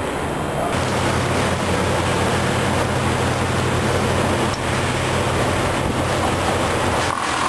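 Steady low drone of a running engine, with a constant noisy hiss over it. The drone shifts a little under a second in.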